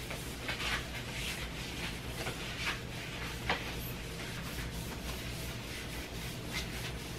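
A cloth wiping the top of a foldable laptop bed tray in short rubbing strokes, about two a second, with one light knock about three and a half seconds in.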